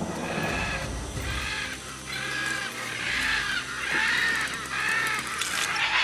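Great green macaw chicks screeching in the nest: about seven harsh, grating squawks, one roughly every second, in alarm as a climber reaches the nest hole.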